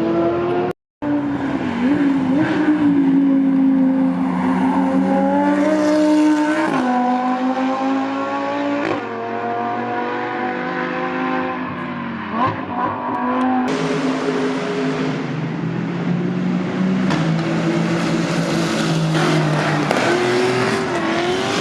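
Race car engines at high revs, the pitch climbing and then dropping several times as the cars go through the gears. There is a brief dropout to silence about a second in, and the sound changes abruptly partway through.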